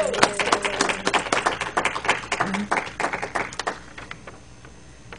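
Small audience applauding with scattered hand claps, which die away about three and a half seconds in.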